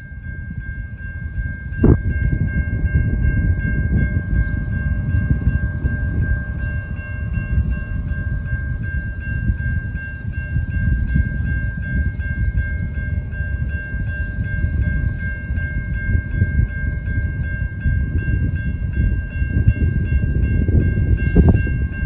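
Distant GO Transit MP40PH-3C locomotive approaching, its air horn holding a steady multi-note chord over a loud low rumble.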